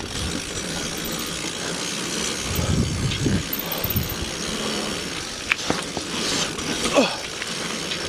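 Riding noise of a Surly single-speed mountain bike on a dirt trail: a steady rush with irregular low bumps and rattles. There is a sharp click about five and a half seconds in and a short falling squeak near the end.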